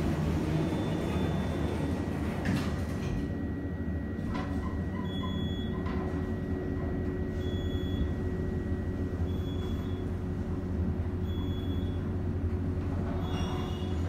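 Elevator car travelling: a steady low rumble and hum from the moving car, with a couple of clicks before the middle and short high beeps every two seconds or so in the second half.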